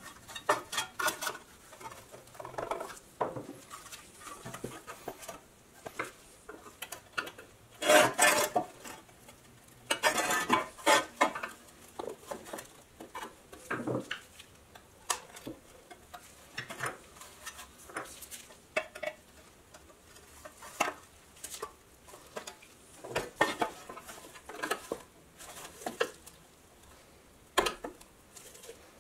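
Hand tools and small steel parts of a pressed-steel Tonka toy truck clinking and scraping against each other during disassembly. The clicks come at irregular intervals, with louder clattering about eight seconds in and again around ten seconds in.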